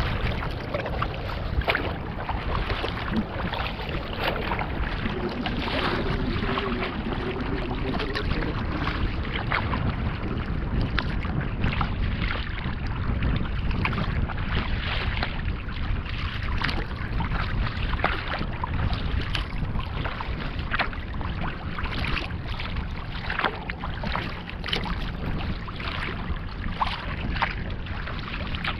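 Choppy lake waves slapping and splashing against a kayak's bow, with many short splashes, over a steady rumble of wind on the microphone.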